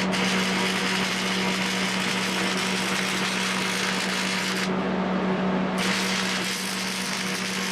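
Stick (arc) welding with an old transformer arc welder: a steady crackling hiss over the welder's constant hum. The hiss cuts out for about a second just before the 5-second mark as the arc breaks, then strikes again.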